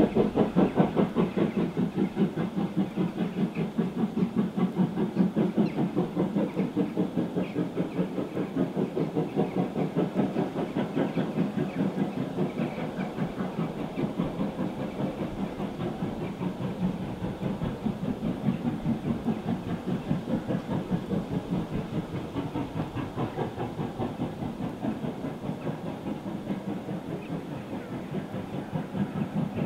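Steam locomotive working a passenger train, its chimney exhaust beating steadily at about three to four beats a second. The beat fades a little in the middle and strengthens again near the end.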